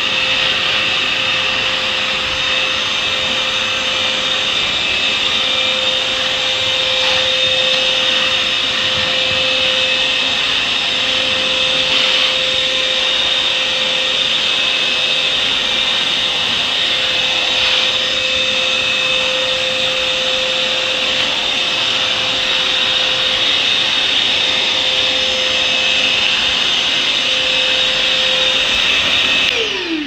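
Parkside PNTSA 20 Li A1 20 V cordless wet and dry vacuum running steadily with a constant whine and airy hiss as its nozzle sucks water off plastic sheeting. Near the end it is switched off, and its pitch falls quickly as the motor winds down.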